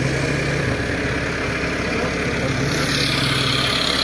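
Diesel tractor engines idling steadily, among them a Massey Ferguson tractor's close by. A higher hiss joins the drone about three-quarters of the way through.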